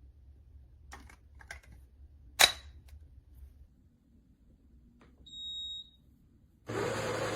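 Ninja Luxe Café Pro Series espresso machine in use: a few clicks of its controls, a short high beep about five seconds in, then the machine starts running loudly near the end.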